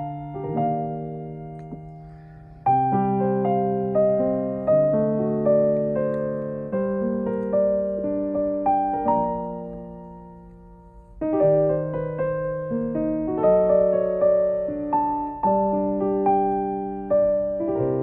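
Background piano music: slow chords and a simple melody, each phrase fading out before the next begins.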